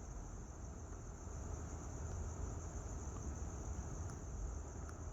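Steady high-pitched trill of insects, over a low rumble, with two faint ticks near the end.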